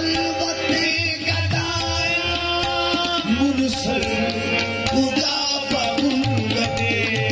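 Qawwali music: tabla strokes and singing over steady held harmonium tones.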